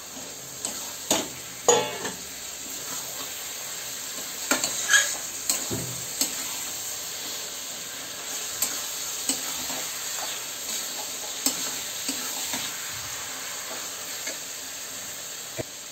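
Raw mutton frying in hot oil with onion and spice paste in a karahi, sizzling steadily as it is stirred with a metal spatula, with scattered clinks and scrapes of the spatula against the pan.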